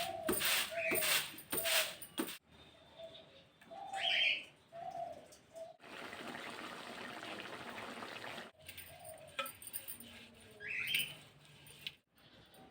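Birds calling: clusters of short, low, repeated notes and a couple of brief higher chirps, with a steady hiss for about two and a half seconds in the middle.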